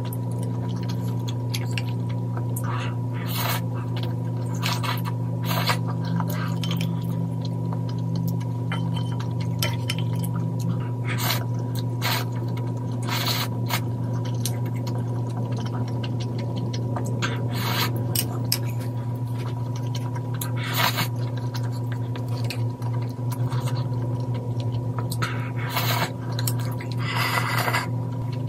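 Eating spicy instant ramen: noodles slurped in short bursts every few seconds, with chewing and occasional light clicks of chopsticks on a ceramic bowl, and a longer slurp from the bowl near the end. Beneath it runs a steady low hum.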